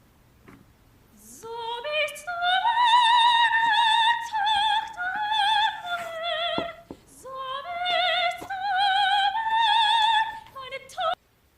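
A soprano singing an operatic melody without accompaniment, with wide vibrato, in two long phrases that climb to high sustained notes. The voice cuts off abruptly near the end.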